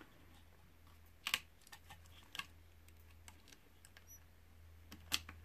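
A handful of sharp, light clicks and taps from small plastic and metal parts and a hand driver being worked into a radio-controlled truck's chassis as spacers and hex screws are fitted. The loudest is a double click about a second in. A steady low hum runs beneath.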